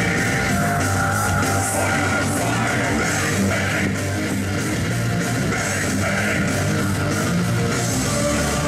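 Rock music with electric guitar playing loud and steady over the PA, the wrestlers' entrance music.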